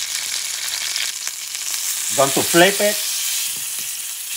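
Ostrich steak frying in hot sunflower oil in a cast-iron skillet: a steady high sizzle. A short voice sound, a hum or a brief word, comes about two seconds in.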